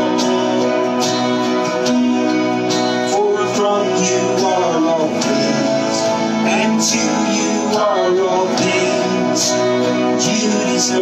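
Live worship band music: guitar with voices singing.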